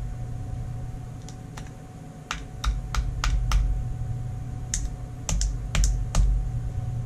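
Small, sharp metallic clicks and taps of a screwdriver tip against a revolver's grip screw and frame as the grip screw is worked loose, in two quick clusters of about five clicks each.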